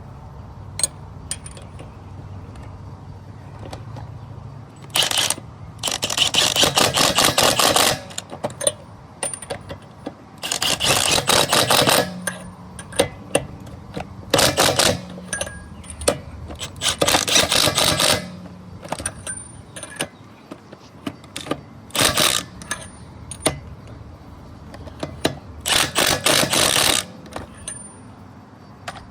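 Impact wrench hammering in about seven short bursts of one to two seconds, running lug nuts onto a wheel, with sharp metallic clicks between the bursts.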